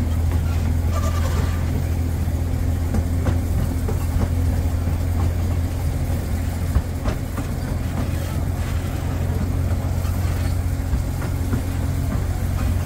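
A narrow-gauge passenger train heard from inside an open coach: a steady low rumble of the train running, with scattered, irregular clicks and knocks from the wheels on the track and the rattling coach.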